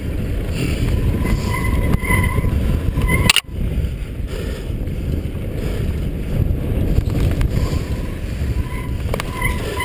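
Mountain bike rattling down a dirt trail, with wind buffeting the microphone. There are short, thin brake squeals at about two seconds and again near the end, and a sharp knock about three seconds in.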